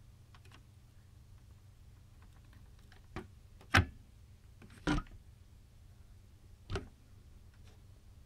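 A few short clicks and knocks from a power-supply circuit board being handled on the bench, four in all, the loudest a little under four seconds in. A faint steady low hum runs underneath.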